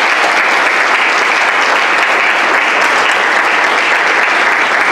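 Audience applauding steadily for a speaker who has just been introduced.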